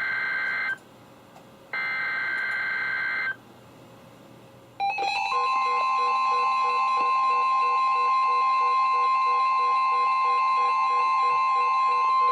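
NOAA Weather Radio emergency alert: the last two buzzy SAME digital header bursts, then about five seconds in the steady 1050 Hz warning alarm tone starts, with a weather radio receiver's own pulsing alert beeps sounding over it. It signals the start of a new warning broadcast, here a severe thunderstorm warning.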